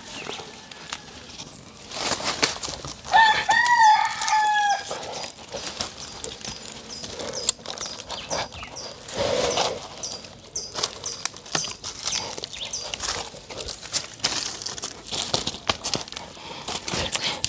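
A rooster crows once, a long call about three seconds in, over scattered scraping and rustling clicks from a man climbing a tree trunk barefoot.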